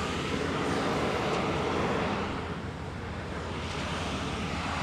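Steady construction-site background noise: an even low rumble and hiss of distant machinery and traffic, with no distinct events.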